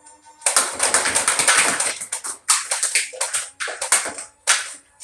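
A clone ECS-10 foam-dart blaster firing a rapid stream of darts. Darts clatter against stacked cans and cups in a dense run of quick hits for about two seconds, followed by several separate knocks.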